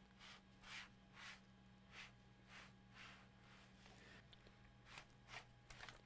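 Near silence: room tone with a faint steady electrical hum and a series of soft, brief rustles.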